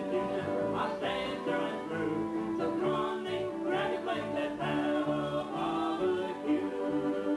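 A live acoustic-electric folk band playing: fiddles and guitars over a pulsing bass line, with a voice singing along.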